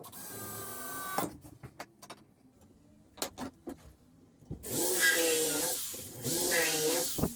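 Woodworking tool working on wood: a rasping stroke, a few knocks and clicks of handling, then two longer rasping strokes of about a second each.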